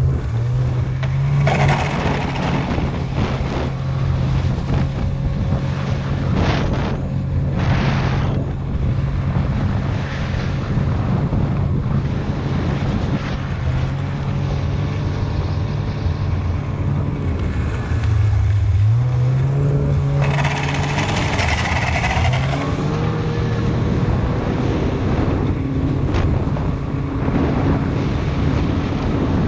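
Snowmobile engine running under way, its pitch climbing as it speeds up at the start and again about two-thirds of the way through, easing back in between. Surges of rushing noise ride over it.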